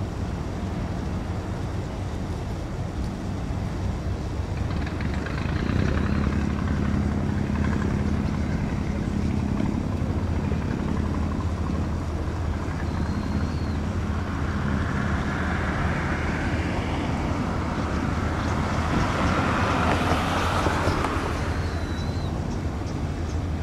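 A steady low engine drone that deepens into a stronger hum about six seconds in, with a rushing noise that swells and then fades away near the end, and a few brief high chirps.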